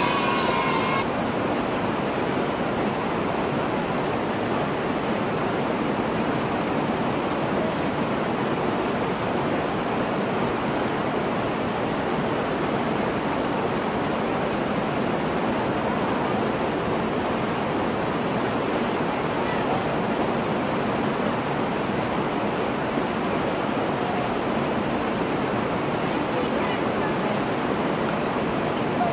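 Steady rush of a small waterfall, creek water pouring and churning over rock ledges close by. A brief high-pitched voice-like sound fades out in the first second.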